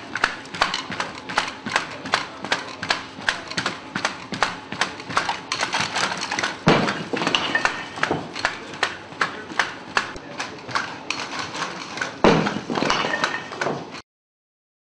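Legged robot (Boston Dynamics BigDog with arm) stepping and shifting on its metal feet: a quick, even clatter of about four knocks a second. There is a heavy thud about seven seconds in as the cinder block is thrown, and another near the end, before the sound cuts off suddenly.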